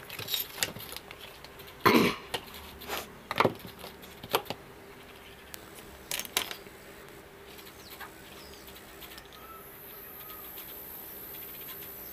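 Multimeter test probes and their leads handled and placed on a circuit board: a run of irregular knocks and clicks, the loudest about two seconds in. A faint high, steady hiss starts about nine seconds in.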